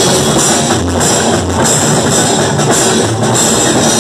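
Death metal band playing live and loud: distorted electric guitars over a pounding drum kit.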